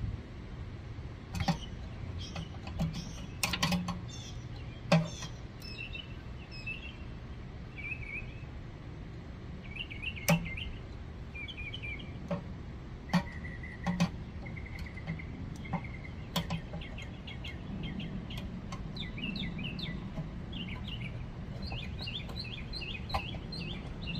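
Scattered sharp clicks of needle-nose pliers and a small spring against a Briggs & Stratton engine's carburetor linkage as the spring is fitted, with birds chirping throughout.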